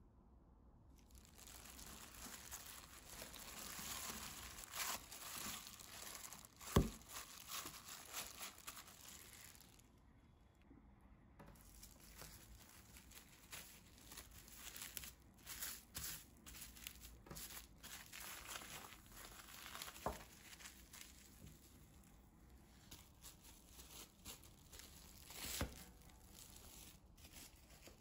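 Plastic cling film crinkling and rustling as hands wrap and handle a ball of gingerbread dough, with many small crackles and a few sharper taps, the loudest about a quarter of the way in.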